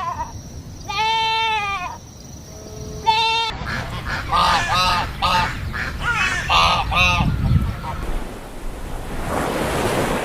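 Goats bleating: one long bleat about a second in, a shorter one near three seconds, then a quick run of short, quavering bleats. The calls give way to a steady hiss near the end.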